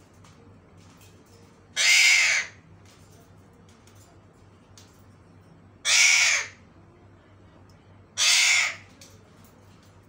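An Alexandrine parakeet gives three loud, harsh calls, each under a second long, spaced a few seconds apart.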